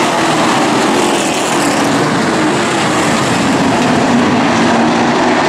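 A field of Late Model stock cars racing in a tight pack, their V8 engines running together at full throttle in one loud, continuous drone. The engine pitch eases slowly downward as the cars go into the turn.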